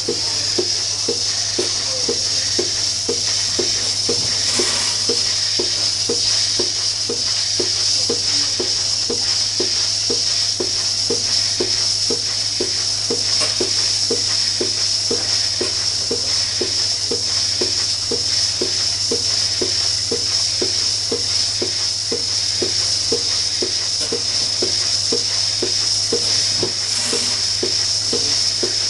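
Lely Astronaut 4 milking robot milking a cow: steady vacuum hiss from the teat-cup lines and a low hum, with the pulsator ticking evenly at about two pulses a second.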